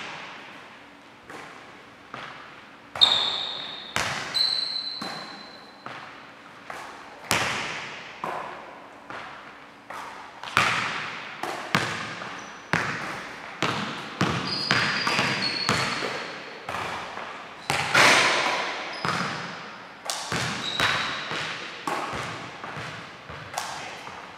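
A basketball thudding on a hardwood gym floor and off hands and hoop every second or so, each hit echoing in a large gym, with a few short sneaker squeaks.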